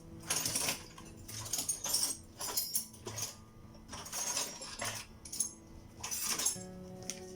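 Irregular metallic clinking and scraping of hand tools on steering rack parts, over background music with a steady beat.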